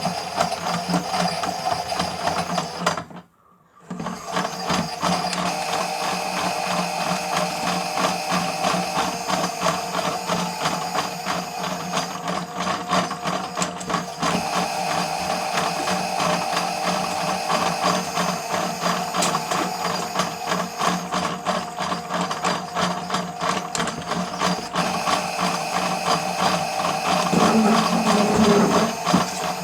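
Miele W1 toy washing machine running its wash, a small motor whirring with a fast mechanical rattle as the drum turns. It cuts out for a moment about three seconds in and starts again.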